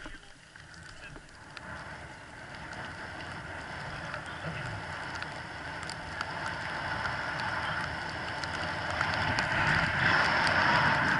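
Skis hissing over snow on a downhill run, with wind buffeting the camera's microphone; the rush grows steadily louder as the skier picks up speed and is loudest near the end.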